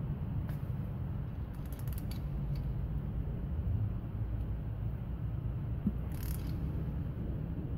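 Ratchet turning a bolt in an engine block through a torque angle gauge, with a few sharp ratchet clicks: a quick run about two seconds in and a louder group about six seconds in. A steady low rumble runs underneath.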